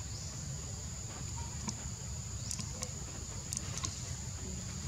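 Outdoor ambience dominated by a steady, high-pitched insect drone, with a low rumble beneath and a few faint clicks.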